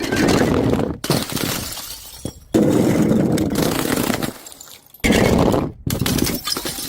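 Glass bottles smashing, about five loud crashes in quick succession, each a burst of breaking glass.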